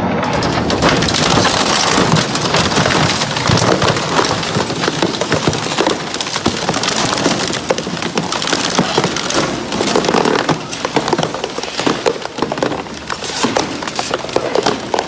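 Twin-shaft shredder's toothed cutting discs tearing through white plastic panels, with a dense, constant crackle of plastic cracking and snapping.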